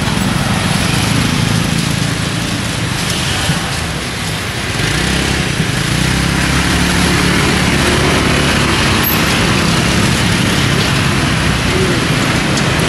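Street traffic: steady road noise with engine rumble, getting heavier about five seconds in as a vehicle passes close.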